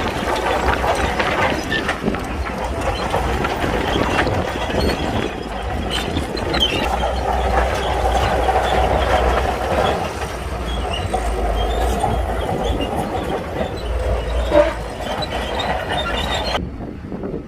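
Shantui bulldozer working: its diesel engine running with a steady low rumble while the steel tracks clank. The sound changes abruptly near the end.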